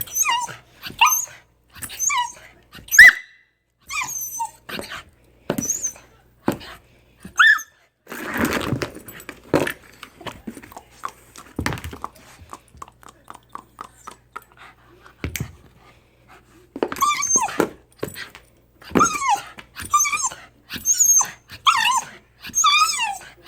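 Dog whining and yipping in many short, high-pitched calls that bend in pitch, coming thick and fast near the end, with clicks and a burst of scuffling noise about eight seconds in.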